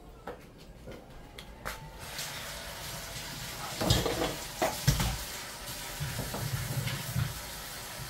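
Kitchen tap turned on about two seconds in, water running into a stainless steel sink as vegetables are rinsed in a bowl. Dishes clatter in the sink about four and five seconds in.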